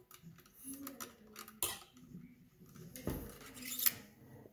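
Metal wire scraping and clicking in the barrel of a .177 air rifle as it is pushed through to clear a jammed pellet. There is a sharp scrape about one and a half seconds in, and a longer, louder run of scraping from about three seconds in.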